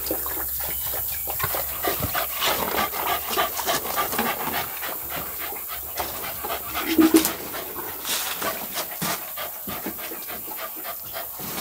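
A dog panting in quick, short breaths, with a brief louder sound about seven seconds in.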